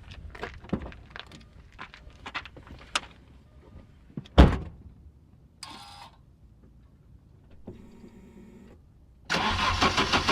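Clicks and knocks from the microphone being set down and someone moving about, with a heavy thump about four seconds in and a short electric whir later. Near the end the Audi's straight-piped five-cylinder engine starts cranking over.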